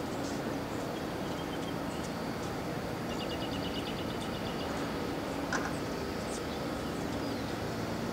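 Steady outdoor background noise, with a bird's rapid run of high chirps lasting about a second and a half, about three seconds in, and a single sharp knock about halfway through.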